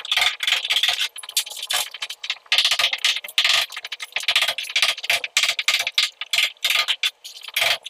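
Quick, irregular scraping and rattling strokes of hand work against a masonry wall, repeating throughout.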